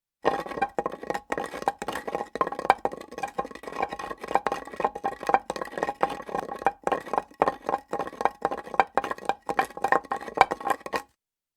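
Hard objects knocked and scraped against granite: a rapid, irregular run of sharp clacks with a steady ringing tone beneath them, stopping near the end.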